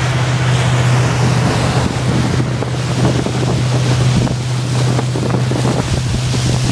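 Pickup truck engine running steadily under a loud rushing of water and wind noise, with many small ticks and patters from about two seconds in.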